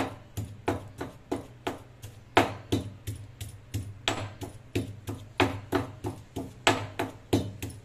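Stone pestle pounding dried red chillies in a small stone mortar: steady strikes at about three a second, a few of them louder.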